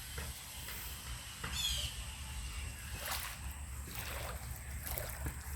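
Footsteps sloshing through shallow creek water over the running water of the creek, with a few sharp splashy steps. A short high chirp sounds about one and a half seconds in.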